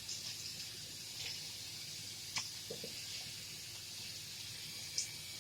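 Kitchen tap running steadily as raw chicken thighs are rinsed under it, with a few small splashes and knocks.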